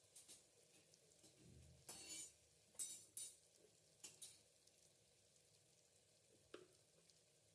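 Faint kitchen sounds of a spoon stirring in a frying pan: a few short scrapes about two to four seconds in, and a small clink near the end, over a low hiss.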